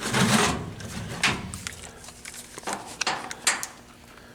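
Objects being handled and shifted about: a handful of short scraping and rustling noises, the loudest right at the start.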